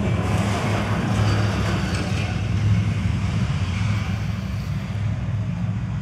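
Logging truck driving past on a dirt forest road: a steady low engine drone with rough road noise over it.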